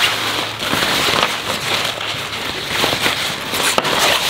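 Rustling and crinkling of a light, smooth synthetic-fabric drawstring bag being handled and folded up to go into its zippered pouch, with many small crackles.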